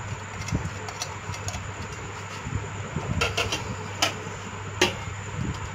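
Light ticks and a few sharp clicks as whole spices and a ceramic plate meet an aluminium pressure cooker, over a steady low hum.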